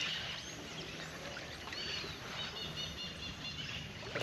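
Quiet outdoor ambience with faint bird chirps, one short arching chirp standing out about two seconds in.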